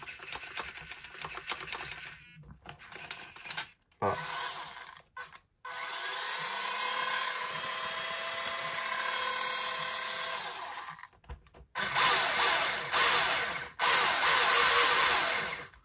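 Small RC monster truck's electric motor and drivetrain whirring as the wheels are run on the bench: a steady whir for several seconds, then louder and rougher near the end.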